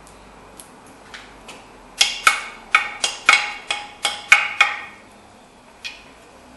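A quick run of about ten sharp metal strikes, each ringing briefly, about three a second, after a few light taps; one more strike comes near the end.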